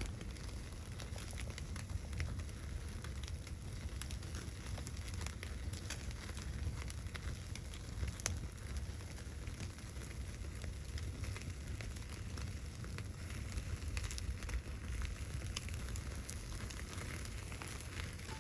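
Wood fire crackling with irregular sharp pops, over a steady low rumble.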